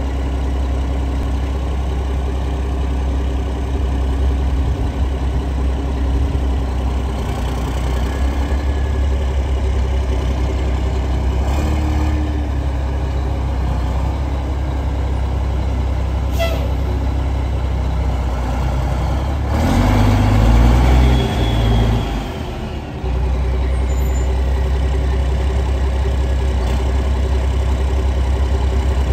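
2002 Mack RD dump truck's inline-six diesel engine idling steadily, louder for a couple of seconds about two-thirds of the way through before settling back to idle.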